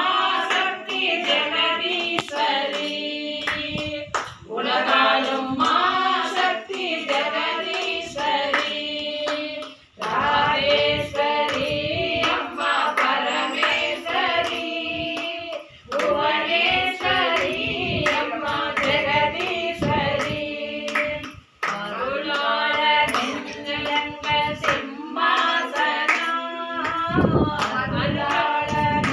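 Group of women singing a Hindu devotional bhajan together, keeping time with hand claps. The singing comes in phrases with brief pauses between them.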